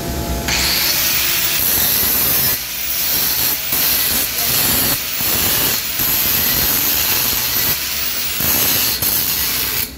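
Angle grinder spinning up about half a second in and grinding a steel pipe weld, the disc pressed on and eased off in short strokes, then switched off just before the end. It is grinding the end of the root bead to a taper (the 'unha') so the closing weld ties in.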